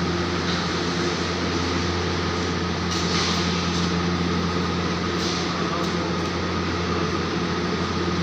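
Steady mechanical drone with a low hum, unchanging throughout, with a few brief faint clicks on top.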